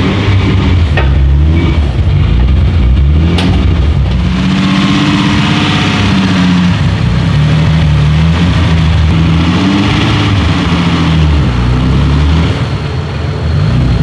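Twin-turbo 4.1-litre V6 (a stroked Nissan R35 GT-R VR38 engine) in a Toyota 86 running loud, its revs rising and falling several times.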